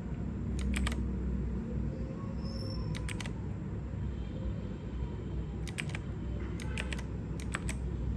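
Clicky blue switches of an AOC GK-230 mechanical keyboard pressed in five short groups of two or three clicks each, over a steady low rumble.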